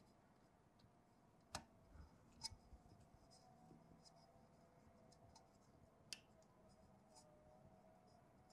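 Near silence with three faint sharp clicks and light handling noise as a load-cell wire is pushed into a terminal block on a junction-box circuit board.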